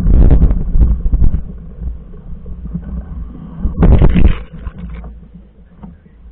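Wind buffeting and rumbling on a camera microphone, with rough gusts in the first second and a half and again about four seconds in, then dying down.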